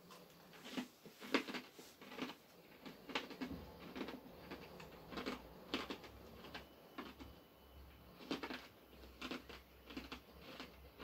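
Someone chewing crunchy pretzel pieces: soft, irregular crunches, about one or two a second.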